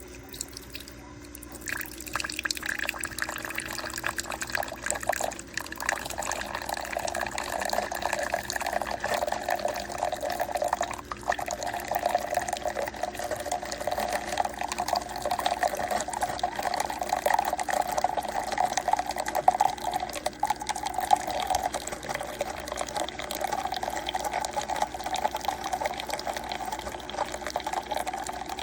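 A steady stream of liquid pouring into a container, starting about two seconds in and running on without a break.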